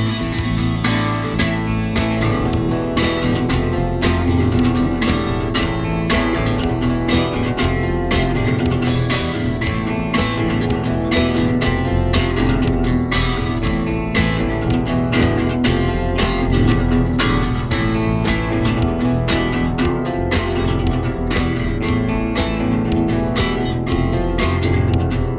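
Guitar-led band music: strummed guitars over a full low end and a steady beat.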